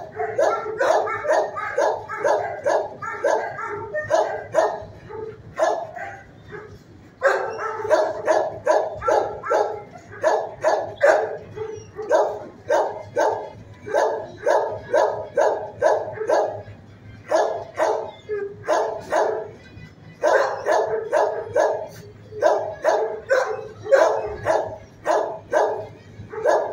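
Shelter kennel dogs barking in rapid volleys of about four barks a second, with short pauses between volleys.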